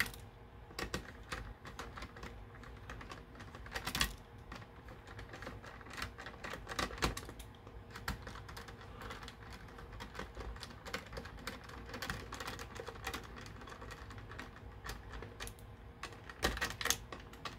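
Phillips screwdriver driving small screws into a 3DR Solo drone's plastic body by hand: a run of quick, irregular clicks and ticks, with a few louder knocks about four seconds in, around seven seconds and near the end.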